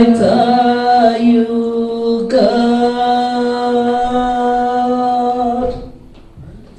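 A voice singing long, held notes in a worship song, changing note twice and then stopping near the end.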